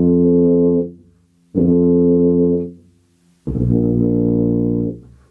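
Tuba playing long, steady sustained notes with a full, open tone from an open 'toe' embouchure: one note ends about a second in, then two more follow with short breaks between them, the last one lower.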